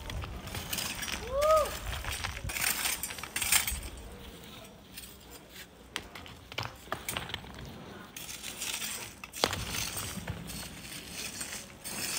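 Hand digging in sand and stones: irregular clinks, knocks and scrapes of metal tools striking gravel and rock. A brief pitched chirp that rises then falls comes about a second and a half in.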